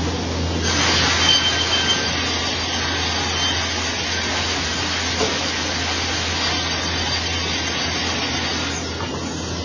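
Vertical band saw resawing a squared timber beam: a steady machine hum under the hiss of the blade cutting through the wood, which brightens about a second in and eases near the end.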